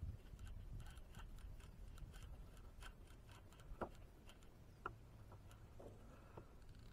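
Near silence with faint, irregular small clicks and ticks, two of them a little louder about four and five seconds in.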